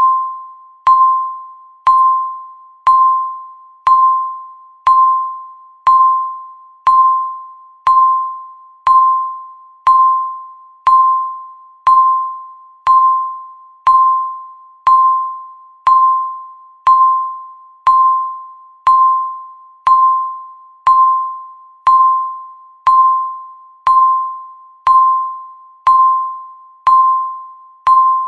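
Countdown timer beeping once every second: the same single high electronic tone each time, struck sharply and fading away like a ding.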